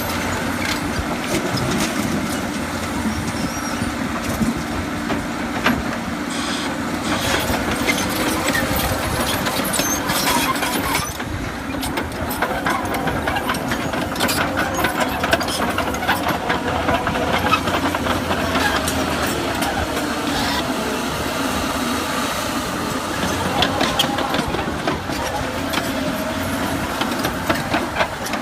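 Heavy diesel construction machine running steadily under work, with frequent metallic clicks and knocks over the engine noise.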